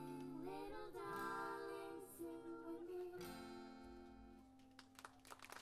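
A voice singing held, sliding notes over acoustic guitar; the sound thins out and fades near the end.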